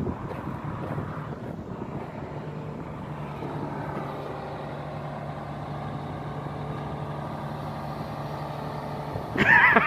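Volvo 480 excavator's diesel engine running steadily at a constant pitch, the machine on a lowboy trailer. A brief loud voice cuts in near the end.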